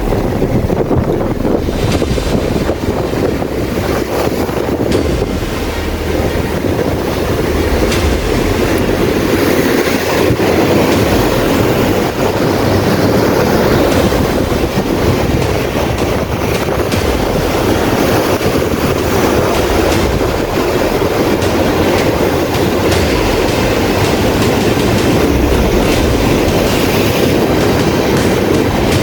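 Strong wind blowing across the microphone: a loud, steady, rumbling noise that does not let up.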